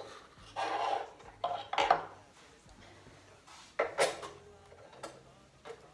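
Metal scraping and clinking as a magnetized tool is poked around inside the metal body of a DeWalt DW735 thickness planer, fishing for a dropped screw. A short scrape about half a second in, then several sharp separate clinks.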